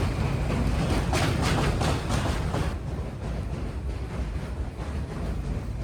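Wind buffeting the microphone over a steady low rumble, a little quieter in the second half.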